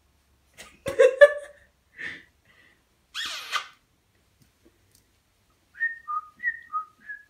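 A sulphur-crested cockatoo gives a few short loud calls about a second in and a harsh screech a little after three seconds. Near the end a whistled two-note tune starts: short notes alternating high and low, about three a second.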